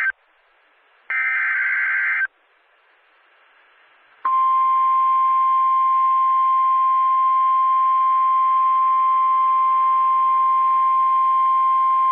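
NOAA Weather Radio emergency alert heard over a radio: the SAME header's digital data bursts, each about a second of buzzing tones, one ending right at the start and another about a second in. After a short pause, the steady single-pitch 1050 Hz warning alarm tone starts about four seconds in and holds, announcing a severe thunderstorm warning.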